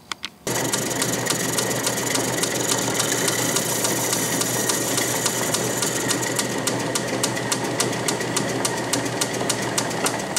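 South Bend 10-inch Heavy lathe running under power while its tool, fed by the compound rest, turns a taper on a bar of metal. A couple of clicks come first. About half a second in, a steady hum with a high whine starts. From about six and a half seconds in, a rapid regular ticking comes about five times a second.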